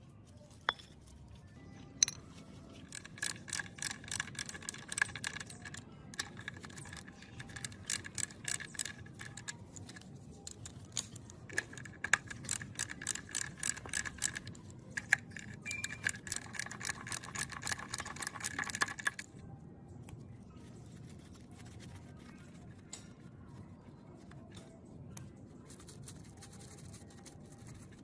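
Rapid metallic clicking in runs, with a steady ringing note, from metal parts being worked during a gearbox restoration. The clicking stops suddenly about two-thirds of the way through, leaving only faint ticks.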